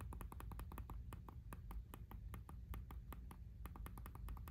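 Button on a clear phone case being pressed over and over, giving rapid, faint clicks at several a second: the tactile click of the button cover pressing the phone's button underneath.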